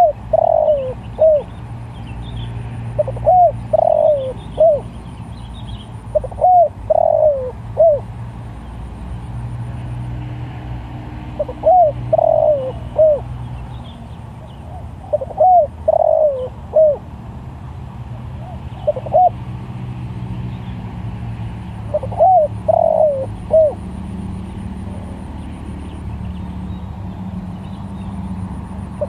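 Spotted dove cooing: a phrase of three or four short notes, repeated about seven times at intervals of a few seconds, over a low steady hum. Faint chirps of a small bird can be heard in the first few seconds.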